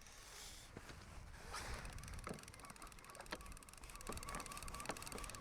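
Fishing reel being wound in with a fish on: faint scattered clicks and ticks, joined about halfway through by a faint wavering whine.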